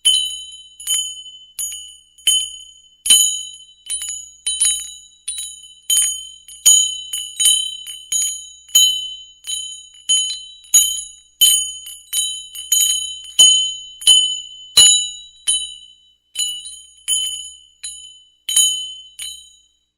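Cattle bell ringing in irregular strikes, roughly one or two a second, each a bright metallic tone that dies away quickly. The ringing stops just before the end.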